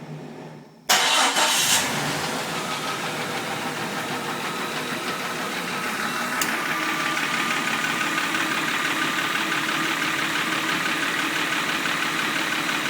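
Jeep Cherokee 4.0 straight-six cranking and catching about a second in, then idling steadily with a top-end tick that the owner suspects is one or two collapsed lifters.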